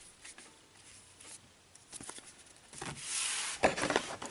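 Box contents being handled: faint clicks and rustling of packaging, with a louder rustle about three seconds in followed by a quick run of small clicks.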